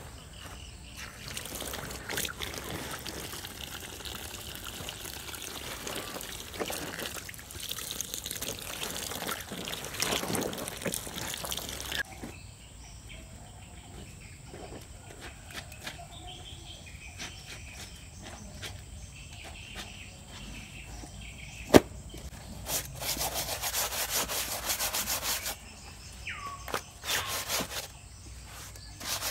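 Hands kneading and squeezing clothes in soapy water in a plastic basin, with wet sloshing and squelching. Later, a single sharp knock, then a stiff brush scrubbing a cloth in quick strokes for a few seconds, with faint bird chirps.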